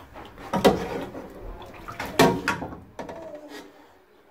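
Metal ladle working in a pot of chicken broth, knocking against the pot twice, about half a second and two seconds in, with liquid moving between.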